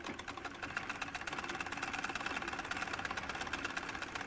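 Treadle-driven Singer sewing machine running steadily, its mechanism making a rapid, even clatter as the treadle is worked by foot.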